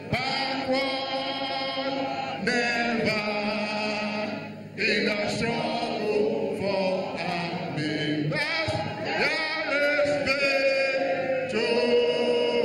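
A trade-union song sung by a group of voices, led by a man singing into a microphone, in long held notes.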